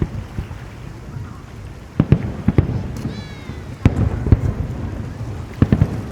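Fireworks bursting: a string of sharp bangs in small clusters, starting about two seconds in, over a low rumble of echoing booms.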